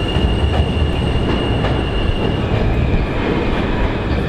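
New York City subway train (J/M/Z line) rolling into the station with a loud, steady rumble. A high, steady wheel squeal runs over it and stops about two and a half seconds in.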